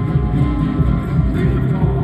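Live music: an amplified acoustic guitar being played, loud and steady with a heavy low end.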